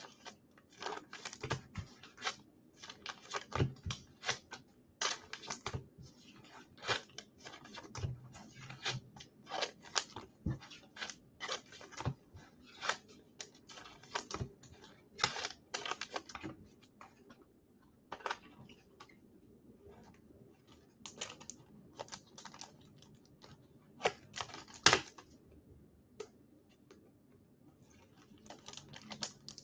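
Typing on a computer keyboard: irregular runs of key clicks, thinning out a little past the middle before picking up again.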